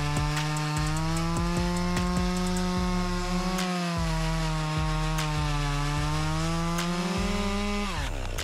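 Petrol chainsaw held at high revs while cutting through a tree trunk, the engine note sagging slightly under load. Near the end the pitch drops quickly as the throttle is released.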